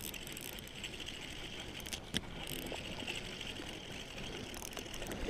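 Fishing reel being cranked steadily as a small trout is reeled in on a rooster tail spinner, with wind noise on the microphone and a sharp click about two seconds in.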